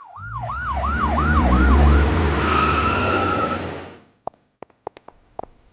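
Siren wailing in quick falling-and-rising sweeps, about three a second, over a loud vehicle rumble. The sweeps settle into a steadier tone, and the whole sound fades out about four seconds in. A few sharp clicks follow.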